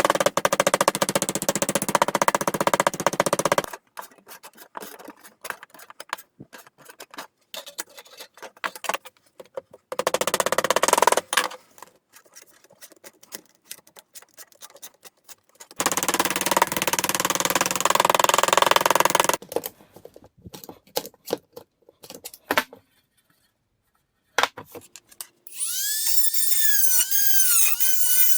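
Power tool cutting into scrap sheet metal in loud bursts of a few seconds, three times, with pauses of scattered clicks and scraping between them. Near the end a tool motor whines, its pitch rising and falling.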